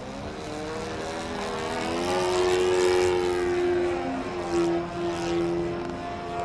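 Radio-controlled model propeller airplane flying overhead, its motor and propeller giving a steady pitched drone that grows louder to a peak about three seconds in as it passes, then holds.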